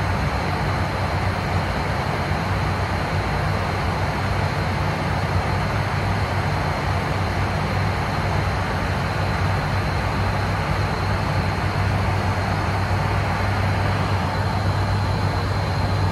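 ATR 72-600 turboprop in flight, heard from inside the cockpit: a steady low propeller drone under a constant rush of airflow, with a thin high whine over it, unchanging throughout.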